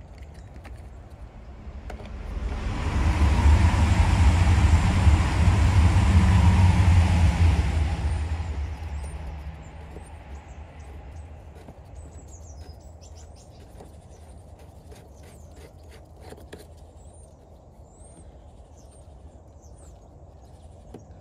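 A passing vehicle swells up about two seconds in, holds for several seconds, then fades away over a steady low rumble. Later comes a run of light clicks and taps, with birds chirping.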